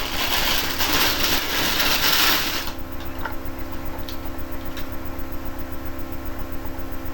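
Rustling of packaging as the comics are unpacked, lasting about two and a half seconds, then a quieter steady low hum with a few faint handling clicks.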